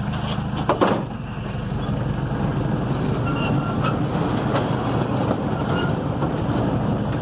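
Small open-car train running along the track: a steady engine and wheel rumble, with a short clatter just under a second in.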